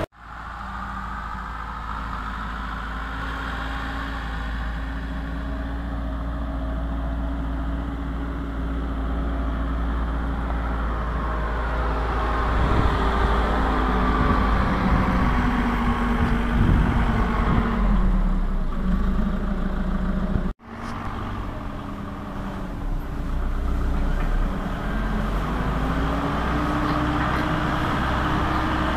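Diesel engine of a Merlo 37.10 telehandler running, its revs rising and falling as the machine drives and works. The sound cuts off abruptly about twenty seconds in, then carries on.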